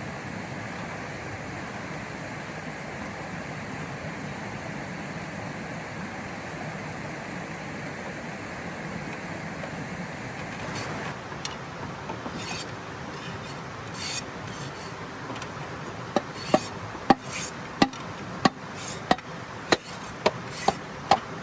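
Steady rushing background noise, then from about halfway a run of sharp, evenly paced knocks, about one or two a second: chopping with a blade on wood.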